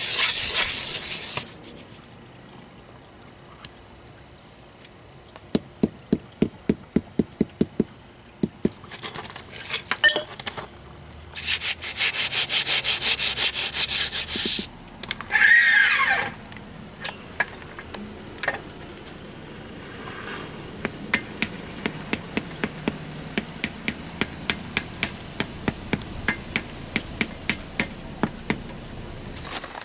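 Pavers being set in a wet concrete bed: a quick run of light taps, about four a second, as a paver is pounded down, with loud stretches of scraping on the concrete in between. Later comes a longer, fainter run of steady taps, a little over two a second.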